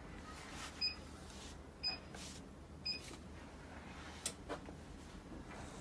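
NoblePro Elite E8i treadmill console beeping its start-up countdown: three short electronic beeps about a second apart. Two sharp clicks follow near the end, before the belt starts moving.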